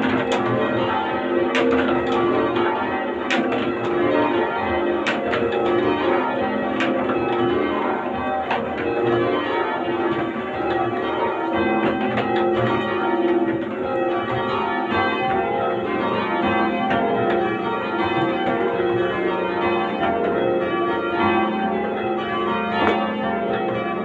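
A somewhat heavy ring of church bells being change-rung: the bells strike one after another in a steady, unbroken stream, each note ringing on into the next. Heard from the ringing chamber below the bells.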